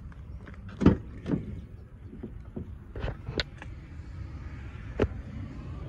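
Rear door of a Ford F-150 crew-cab pickup being unlatched and swung open: a loud clunk of the latch about a second in, then several lighter clicks and knocks from the door and its handle, over a steady low rumble.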